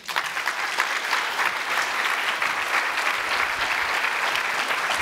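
Audience applauding, dense and steady, breaking out all at once.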